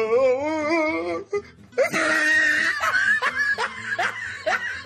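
Background song: a sung voice holds a wavering note, then a fuller passage with voices and laughter mixed in. It cuts off abruptly at the end.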